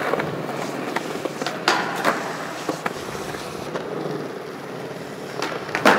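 Skateboard wheels rolling on a smooth concrete floor, with sharp clacks of the board. A pair comes about two seconds in, and the loudest comes near the end.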